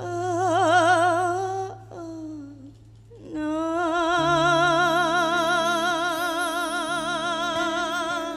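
A song: a singer holds long notes with a wide, even vibrato over sustained backing chords. A short phrase comes first, then one long held note from about three and a half seconds in.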